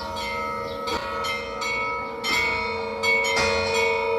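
Bell-like chimes: about half a dozen struck notes a second or so apart, each ringing on so that the tones overlap.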